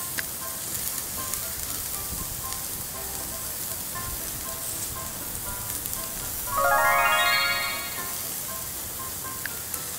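Skewers sizzling on a grill as they cook, under soft background music. About six and a half seconds in, a loud held note rises over them for about a second and a half.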